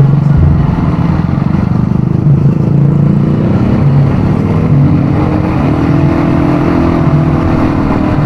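ATV engine running while being ridden, its pitch rising a little about halfway through.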